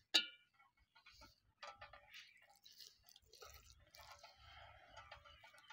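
Hand kneading rice flour with water in a glass bowl: one sharp clink with a brief ring right at the start, then soft crumbly rustles and small clicks, with a thin stream of water trickling into the flour during the second half.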